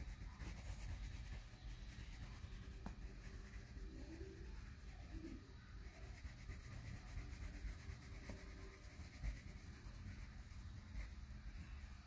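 Coloured pencil shading on paper: faint, continuous scratchy rubbing of back-and-forth strokes.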